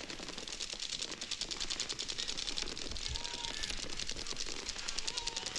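Many paintball markers firing at once as both teams break out at the start of a point. It is a dense, fast, steady rattle of shots, many per second.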